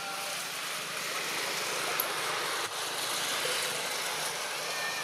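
Steady outdoor background rush, a hiss-like noise without a clear source, with a few faint bird chirps and a single sharp click about two seconds in.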